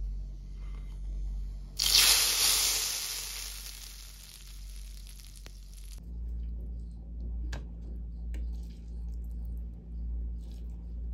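Tadka of hot oil with dried red chillies poured onto a bowl of arhar dal, sizzling loudly for a few seconds from about two seconds in and fading. Afterwards, soft scrapes and squishes of aloo gobhi being spooned from a frying pan onto rice.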